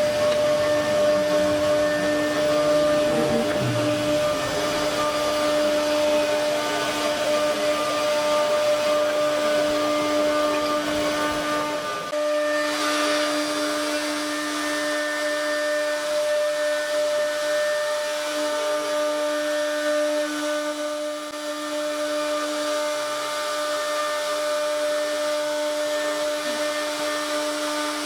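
CNC router spindle running with a steady high whine over a cutting hiss; a low rumble underneath drops out abruptly about halfway through.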